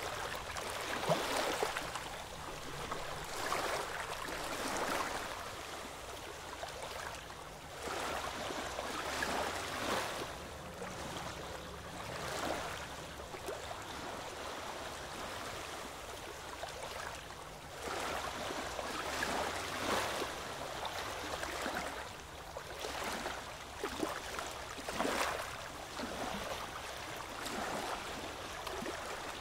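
Oars of a rowboat dipping and pulling through calm sea water, a splash and gurgle about every two seconds, with water rushing and lapping along the hull between strokes.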